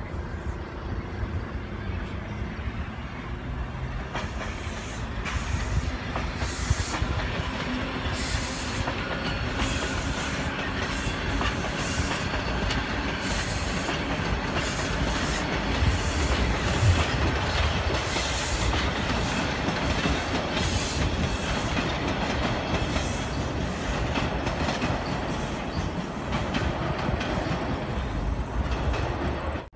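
TTC subway train running past on surface tracks: a steady rumble with repeated clacks of the wheels over rail joints.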